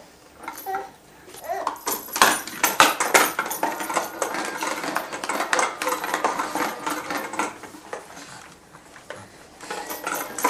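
Plastic balls rattling and clattering through a baby's roller-ball activity toy, a dense run of rapid clicks for several seconds that eases off near the end.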